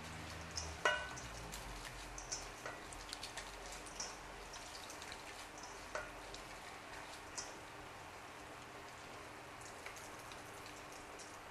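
Hands squeezing and kneading wet grated coconut in a stainless steel bowl, working water through it to draw out coconut milk: faint wet crackling with scattered small clicks, and a light clink about a second in.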